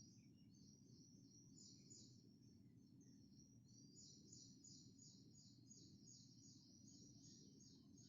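Near silence: faint, rapid high-pitched chirping repeating several times a second over a low, steady rumble.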